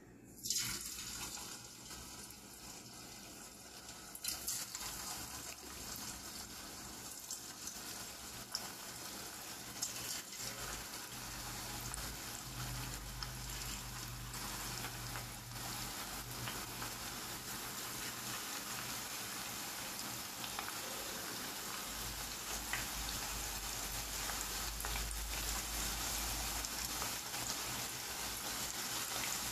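Coated chicken strips dropped into hot oil, sizzling as they deep-fry. The sizzle bursts in as the first strip goes in about half a second in, jumps again with the next strip a few seconds later, and grows fuller and louder as more strips are added.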